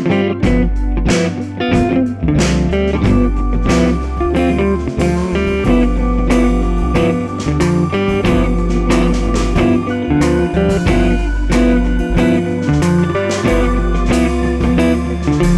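Background music: a guitar-led, blues-rock style track with a steady beat and bass.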